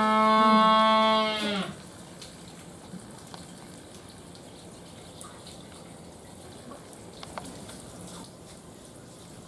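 A Humboldt penguin's loud call: one long note held at a steady pitch that drops and breaks off under two seconds in. Running water goes on steadily after it.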